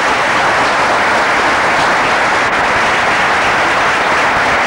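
Dinner guests applauding: steady, dense clapping from many hands.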